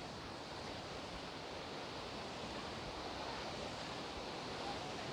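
Steady rushing noise of a waterfall close by.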